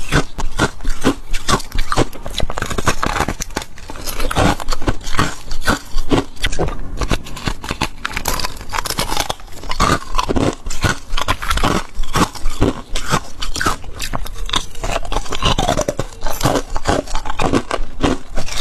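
Close-miked biting and chewing of freezer frost: rapid, irregular crunches that keep going.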